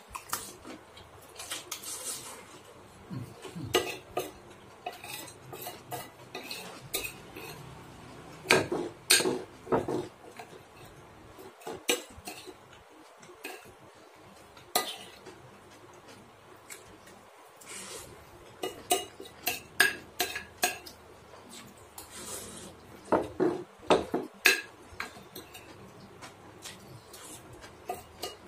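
Metal fork and spoon clinking and scraping on a ceramic plate, gathering up the last of a plate of fried instant noodles and egg. The clinks come irregularly, in short clusters of several strikes.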